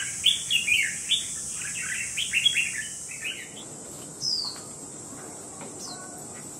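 Caged red-whiskered bulbul singing: a quick run of chirping notes for about the first three seconds, then two short down-slurred whistles later on.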